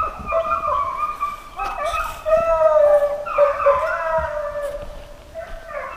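A pack of deer hounds baying together in long, overlapping howls, nearly all of them opening right after being let out, a sign the dogs have struck the deer's scent.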